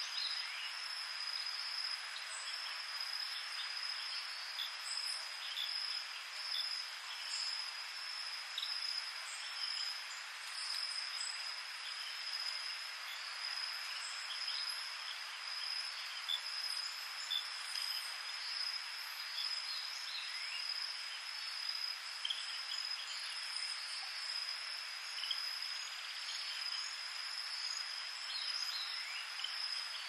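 Tropical night chorus of crickets and other insects: a steady high trill over a dense, even buzzing, dotted with many brief chirps and short rising calls.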